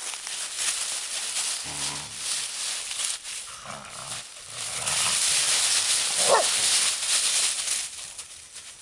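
Entlebucher mountain dogs romping and wrestling through deep dry leaves, the leaves rustling loudly throughout, with low growls during the tussle and a short rising yelp about six seconds in.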